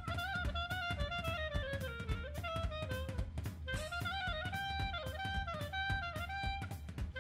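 Instrumental background music: a drum kit keeping a steady beat under a gliding lead melody.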